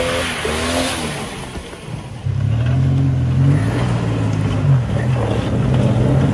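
Engine of a lifted SUV revving up and down under load as it crawls up a rocky ledge, starting about two seconds in.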